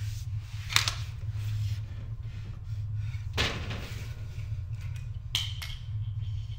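A glass bottle handled on a tiled floor: a sharp knock about a second in, a short hiss a little after the middle as the bottle is opened, and a click near the end, over a steady low hum.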